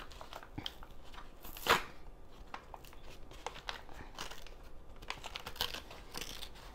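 Paper flour bag crinkling and tearing as fingers pick and pull at its sealed top, a stubborn bag that is hard to open. Irregular small crackles throughout, with one louder rustle about two seconds in.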